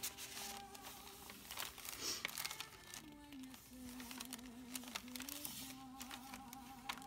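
Paper pages and tucked-in cards of a handmade junk journal rustling and crinkling as they are turned and unfolded by hand, over faint background music.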